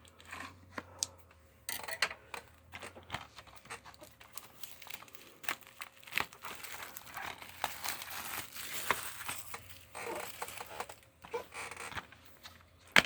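Plastic shrink-wrap being torn and peeled off a DVD case, with crinkling and tearing mixed with clicks and taps of the case being handled. The crinkling is thickest in the middle, and a sharp click comes near the end.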